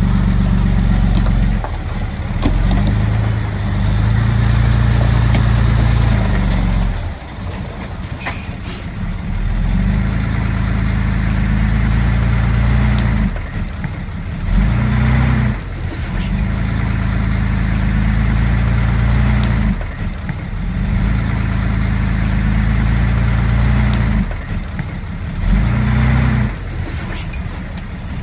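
Bulldozer's diesel engine working under load, swelling and dropping in repeated cycles every five or six seconds, with a few sharp metallic clanks.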